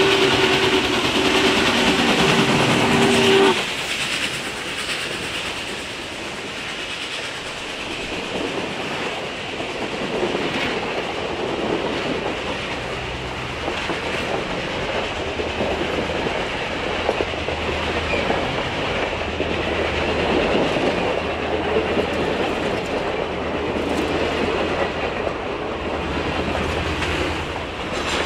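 Norfolk & Western 611's steam whistle sounds a held chord that cuts off about three and a half seconds in. Then the train rolls past with a steady rumble and wheels clattering over the rail joints.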